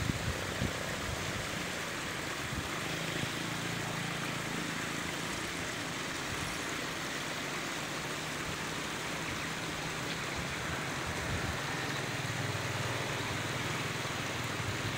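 Steady outdoor hiss with the low hum of motor vehicle engines coming and going, from about two seconds in to about eight, and again from about eleven seconds in.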